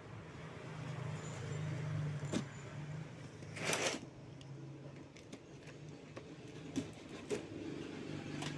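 Handling and unpacking a delivered package: scattered clicks and knocks and one short scraping, ripping noise, over a steady low hum.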